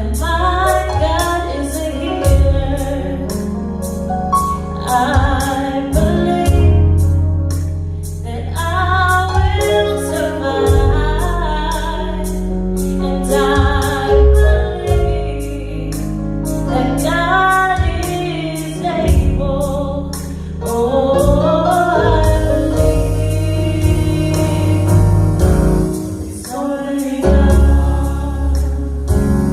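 Gospel worship song: several voices singing a melody over bass and a steady beat.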